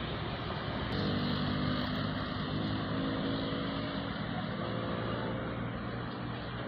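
Passing road traffic: a steady engine drone with a low hum over a wash of outdoor noise, starting about a second in.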